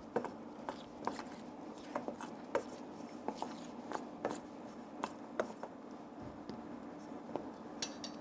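Metal spoon clinking and scraping against a stainless steel bowl as white chocolate is stirred while it melts over a pan of hot water: irregular light taps, about two a second, over a steady low hum.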